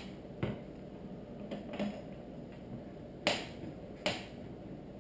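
Small metal parts and hand tools clicking and knocking against each other during fork assembly: four short sharp clicks, the two near the end the loudest.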